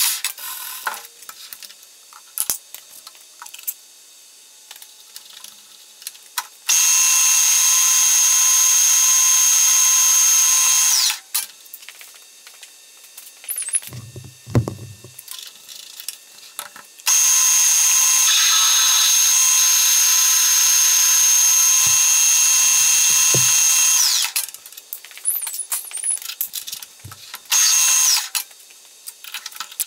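Metal lathe turning a spacer, running in three spells of a loud, steady high-pitched whine that start and stop abruptly. In the pauses between runs there are a few low clunks.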